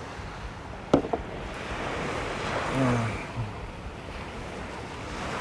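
Small bay waves washing on a sandy shore with wind on the microphone, swelling slightly two to three seconds in. A single sharp click comes about a second in.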